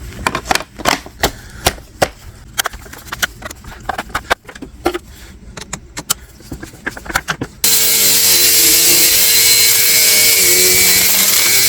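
A run of irregular clicks and knocks, then about seven and a half seconds in a Bissell PowerForce 1739 upright vacuum switches on suddenly. It runs steadily with a hum and a loud rush of air, its hose just cleared of a jam.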